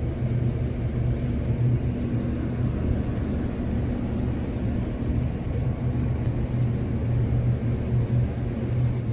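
An engine running steadily with a low, even hum that does not change.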